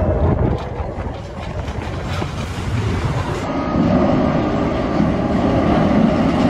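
Expedition Everest roller coaster train running along its track, rumbling and clattering. The low rumble grows stronger about halfway through.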